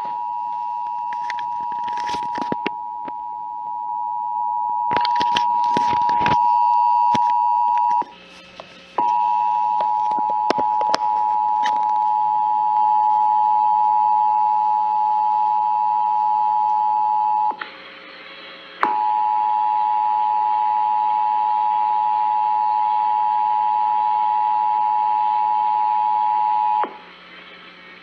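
Emergency Alert System attention signal, the steady two-tone alert played over a weather radio's speaker during a monthly test. It sounds in three long stretches, each cut off for about a second, with several clicks and knocks during the first.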